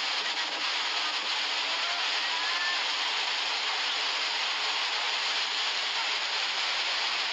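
Steady rushing noise of a flooded river carrying a lahar mudflow, mixed with heavy rain, during torrential rainfall.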